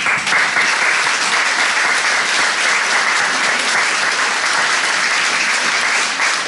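Audience applauding, breaking out all at once and keeping up steadily.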